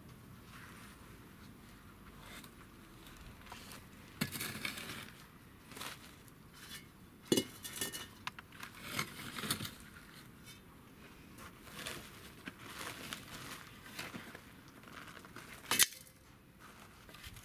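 Metal garden trowel scraping and clinking against a pot cut from a steel gas bottle as soil is scooped into it: irregular scrapes and clinks, with two sharp knocks, one about seven seconds in and one near the end.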